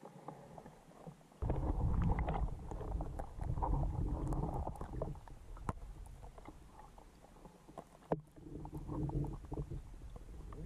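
Muffled low rumble and gurgling of creek water heard through a submerged camera, with scattered small clicks. It gets much louder about a second and a half in, and a single sharp click sounds about two-thirds of the way through.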